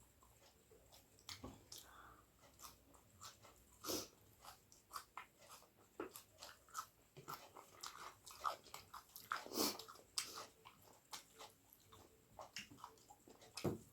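Close-miked eating: chewing with irregular wet mouth clicks and smacks as a person eats a pork and egg curry meal.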